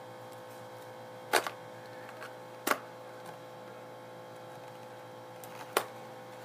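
A few sharp clicks and taps of small cardboard packaging being handled and opened by hand: a quick double click, then single clicks a little over a second and about three seconds later.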